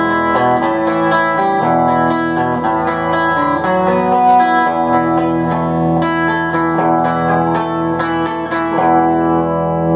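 Electric 12-string guitar picked through a chord passage in E, with paired strings and open notes left ringing together for a chimey sound.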